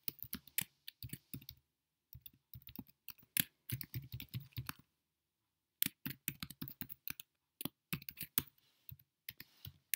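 Typing on a computer keyboard: runs of quick keystrokes with short breaks, and a pause of about a second halfway through.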